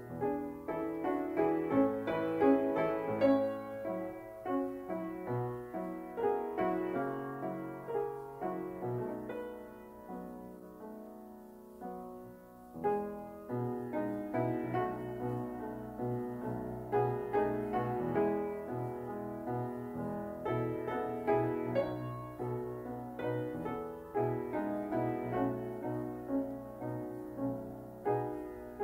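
Background piano music, with many notes struck and left to ring. It grows softer for a few seconds about a third of the way in, then picks up again.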